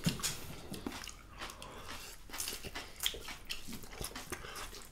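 Chewing and wet mouth sounds of people eating rice and dal by hand: scattered small smacks and clicks.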